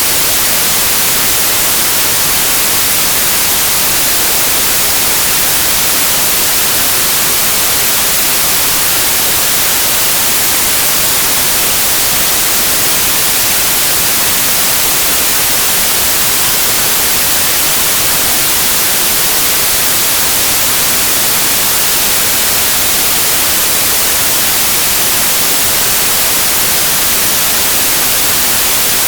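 Steady white noise: an even, loud hiss spread across all pitches and brightest in the highs, with no change.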